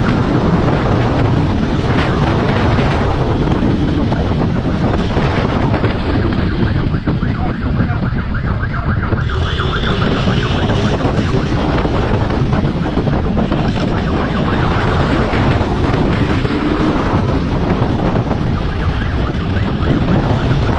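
Heavy wind buffeting the microphone of a police motorcycle riding at speed, with its engine running underneath. A brief high tone cuts in about ten seconds in.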